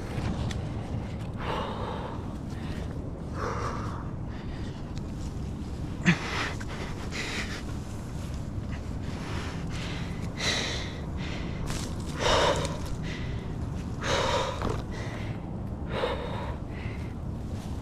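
A tree climber's heavy breathing under exertion: loud breathy gasps about every two seconds, over a steady low rumble.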